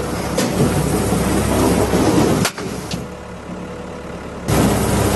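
Skid steer loader's engine running steadily, with a few sharp knocks. The engine drops quieter for about two seconds in the middle, then comes back up.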